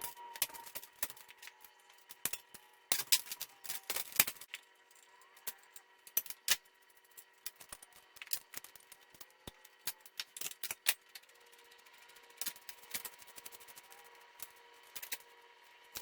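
Irregular clicks, clinks and clacks of hand tools and small metal bicycle parts being handled, in uneven clusters with a few sharper knocks, during a headset swap.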